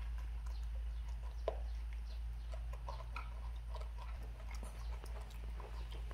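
Faint clicks and scrapes of metal spoons in plastic bowls and the chewing of two young macaques eating fried rice, with one sharper click about a second and a half in, over a steady low hum.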